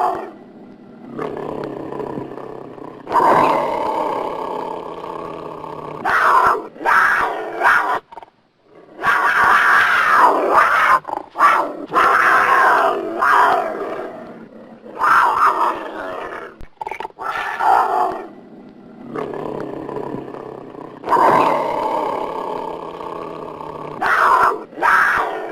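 Sumatran tiger growling and roaring: a string of long, rasping calls lasting a few seconds each, with short pauses between them and one brief silence about eight seconds in.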